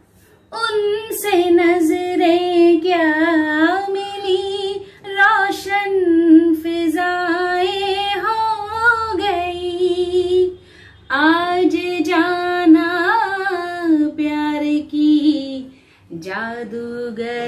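A woman singing a Hindi ghazal unaccompanied, with long held notes and ornamented turns, breaking briefly between phrases.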